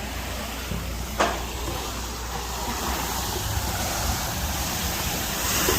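Steady rushing and splashing of water from a waterpark slide and pool, with one short sharp click about a second in.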